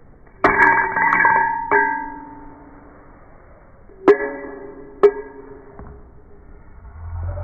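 Short musical phrase of sharply struck, ringing notes: a quick cluster in the first two seconds, then two single notes about four and five seconds in, each dying away. A low rumble comes up near the end.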